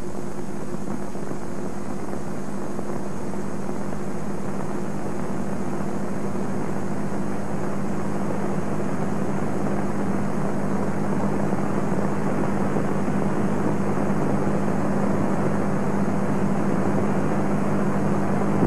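Steady hiss with a low, even hum from an old 1950s film soundtrack, with no speech or music, growing slightly louder toward the end.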